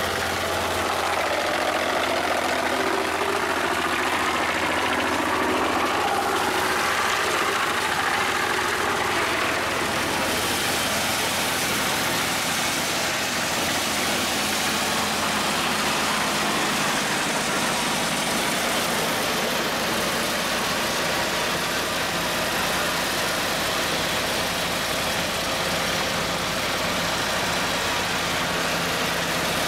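Home-made wood chipper running, its engine driving the chipping drum; for the first ten seconds or so wooden slats are being fed in and chipped, with a shifting, wavering sound, after which the machine runs on steadily.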